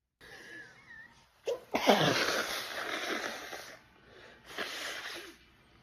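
A woman sneezes hard about two seconds in: a sharp intake, then an explosive voiced burst that falls in pitch and trails off in a long breathy rush. It is one of a run of sneezes in an allergic sneezing fit. A shorter breathy burst follows near the end.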